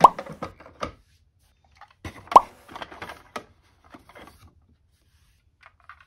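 Toy ambulances being set down and shifted in a cardboard box: hollow knocks on the cardboard and light plastic clicks and rattles. The two loudest knocks ring briefly, one right at the start and another about two and a half seconds in.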